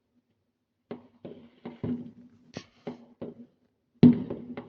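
Fireworks going off: an irregular string of sharp pops and bangs, each with a short echoing tail, the loudest about four seconds in.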